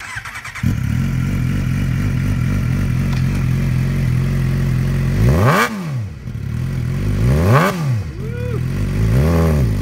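2008 Suzuki GSX-R600's fuel-injected inline-four through a Yoshimura aftermarket exhaust: it starts up and catches under a second in, then idles steadily. About halfway through it is revved sharply twice, followed by two smaller throttle blips near the end.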